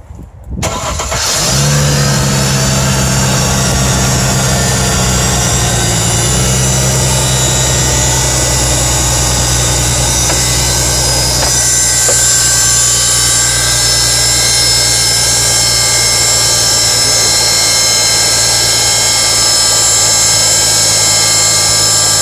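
Mercedes-Benz W204 C-Class engine starting and then running steadily at idle, its idle speed stepping down about six seconds in. A steady high whine runs over the engine, the weird start-up sound that the owner puts down to the air pump.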